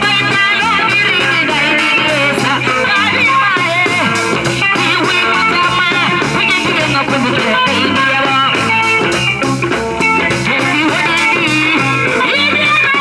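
Live band music through loudspeakers: electric guitar, bass guitar and a hand drum playing steadily, with a woman singing into a microphone.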